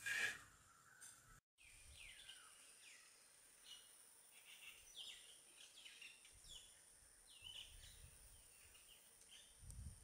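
Faint background birdsong from several birds: many short chirps and downslurred whistled notes, over a steady high hiss. A loud call right at the start is the loudest sound, and the sound drops out completely for a moment about a second and a half in.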